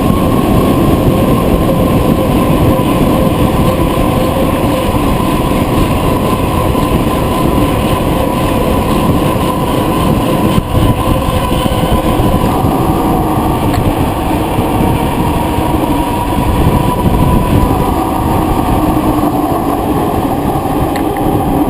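Wind buffeting the microphone and tyre rumble of a bicycle coasting fast downhill: a loud, steady rush with a faint steady whine underneath.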